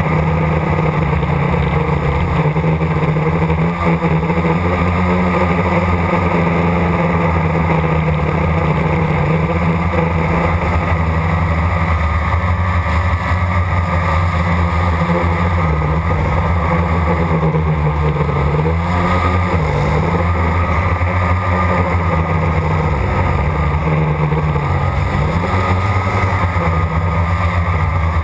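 Blade 350 quadcopter's electric motors and propellers humming steadily, heard from the camera carried on the drone. The pitch dips and rises briefly a few times as the throttle changes, about two-thirds of the way through and again near the end.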